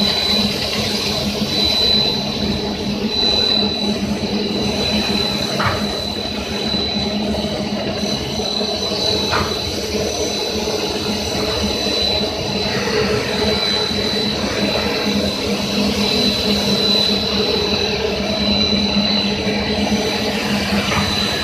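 Industrial brush sanding machine for cabinet doors running steadily, its disc and roller sanding brushes spinning with a constant hum and a high steady whine.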